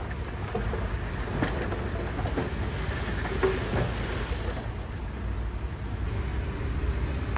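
Heavy earthmoving machinery at work: a steady low diesel rumble with metallic clanks and rattles, most of them between about one and four and a half seconds in.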